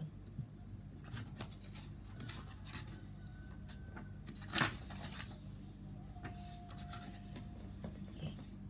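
Paper rustling and small knocks from a book being handled while it is opened to the first page, with one sharper click about four and a half seconds in, over a steady electrical hum.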